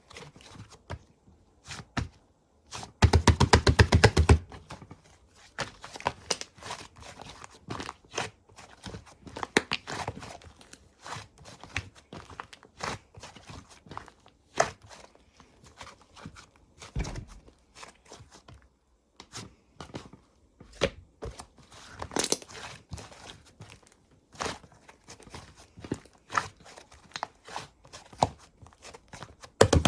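Slime being squished, pressed and stretched by hand: irregular sticky clicks, pops and crackles of trapped air, with a dense run of rapid clicking about three seconds in.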